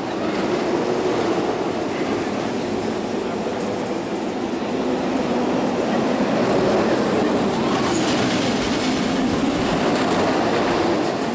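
A vehicle running steadily: a continuous rumble that grows a little louder about halfway through.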